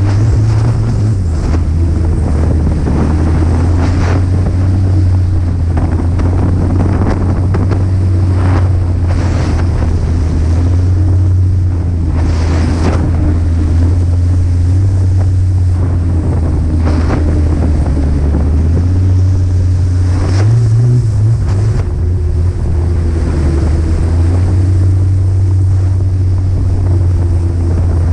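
Snowmobile engine running steadily at travelling speed, with wind buffeting the microphone in short gusts every few seconds.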